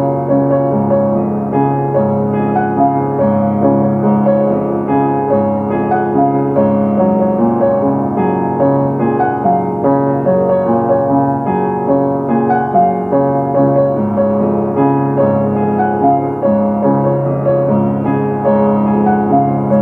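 Piano or keyboard music: a gentle melody of held notes over a bass line that changes about once a second.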